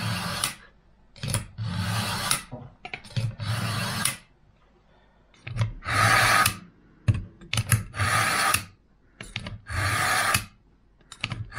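Chef's knife drawn repeatedly through a Vulkanus G2 pull-through sharpener, the blade scraping across its spring-loaded sharpening blades in about six strokes of under a second each, with short pauses between them. This is the fine-sharpening stage, putting a finer edge on the blade.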